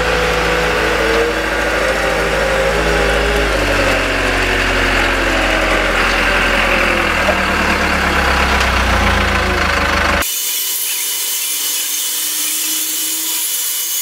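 Engine running, its pitch shifting up and down, cut off abruptly about ten seconds in. A steady hiss of rain follows.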